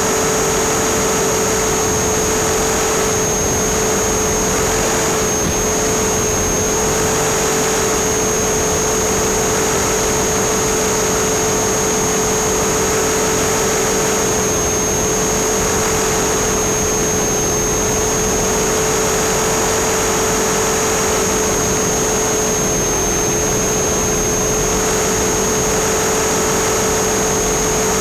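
Align T-Rex 450 electric RC helicopter in flight, heard from its onboard camera: a steady drone from the rotor and electric motor with a high whine that dips slightly in pitch a few times.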